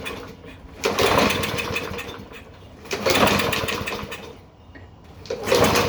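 Toro lawn mower's engine being pull-started three times, about two seconds apart; each pull gives a sharp cranking burst that dies away without the engine catching. Even primed with a little fuel it does not fire, which the owner later puts down to the carburetor.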